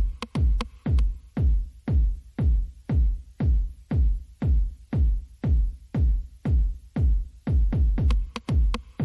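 Electronic background music with a steady drum-machine kick about two beats a second, with a few quick extra hits near the start and again near the end.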